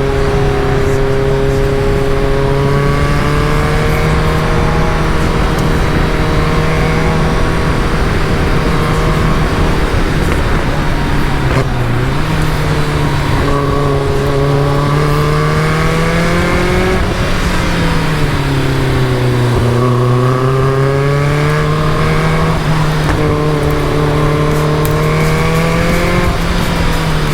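Caterham Super Seven's engine running under way, held at fairly steady revs with the pitch slowly rising and falling as the throttle changes. There is a brief drop in revs a little before halfway, and a deeper drop about two-thirds of the way through before the revs climb again.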